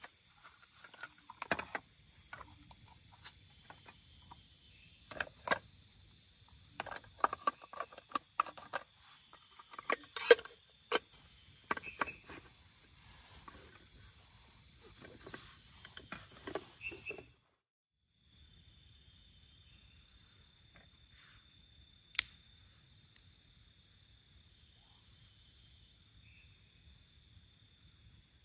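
Crickets chirring steadily. For the first part, gear in a mesh drawstring bag is handled close by, making a series of clicks, knocks and rustles, and the drawstring is pulled. After a short break only the crickets go on, with one sharp click a few seconds later.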